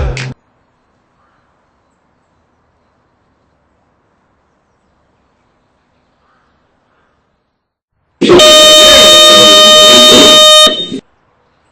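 High school class bell, an electric horn-type signal, sounding loudly about eight seconds in: one steady, unchanging tone rich in overtones, held for about two and a half seconds before it cuts off.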